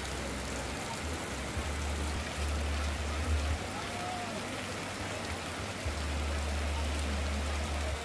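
Steady rain falling, with water streaming off tarpaulin and roof edges onto the ground, and faint indistinct voices underneath. A low rumble comes and goes.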